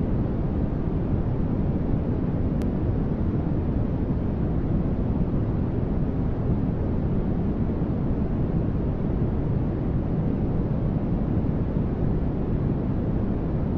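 Continuous generated sleep-masking noise: a steady, unchanging static with most of its weight in the low end, more a deep rush than a thin hiss.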